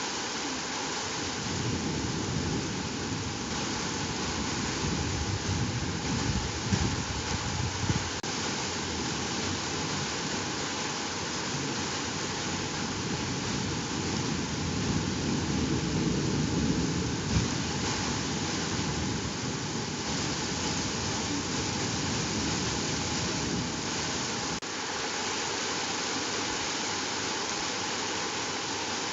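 Heavy rain pouring down in a steady, dense hiss during a thunderstorm downpour.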